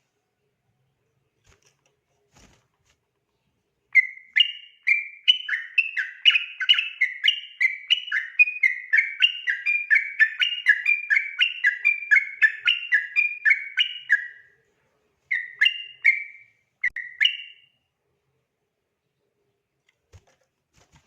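Yellow-vented bulbul (trucukan) singing its rolling 'ropel' song: a fast, unbroken run of bubbly whistled notes, several a second, lasting about ten seconds after a few seconds of quiet. A short pause follows, then a few brief closing phrases.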